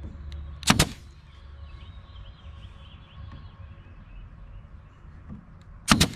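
Two sharp wooden knocks about five seconds apart, each a quick double strike, as glued drawer parts are handled and fitted together, over a low steady shop hum.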